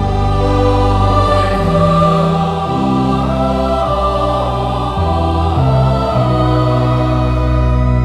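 Choir singing a slow hymn in sustained chords over a low accompaniment, the chords changing every second or two.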